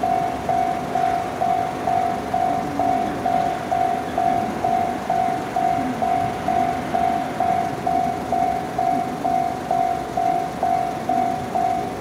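Japanese level-crossing warning bell ringing steadily, about two rings a second, with a low rumble underneath: the crossing is closed for an approaching train.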